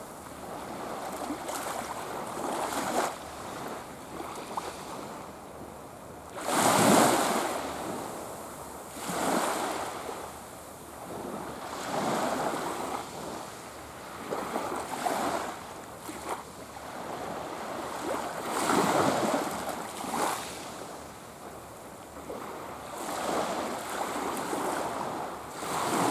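Small waves washing onto a sandy beach, each wash swelling and fading every few seconds, with two louder ones about a quarter of the way in and again about three-quarters in.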